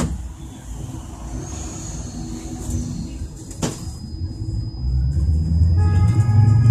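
Trolleybus interior: low rumble of the vehicle rolling, a single sharp click about three and a half seconds in, then the electric traction drive whining and rising steadily in pitch as the trolleybus accelerates, growing louder toward the end.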